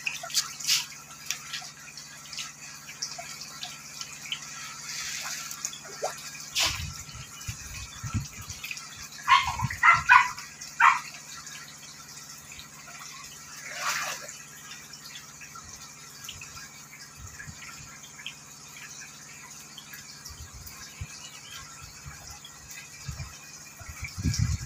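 Water splashing and dripping as a crowd of catfish thrash and gulp at the surface of a concrete pond: a steady wet churn with scattered small splashes. A brief loud burst of pitched sound stands out near the middle.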